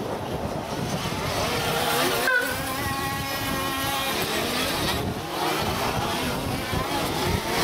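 Several small nitro engines of 1/8-scale RC off-road buggies running at high revs. Their pitches overlap and rise and fall as the cars accelerate and brake around the track.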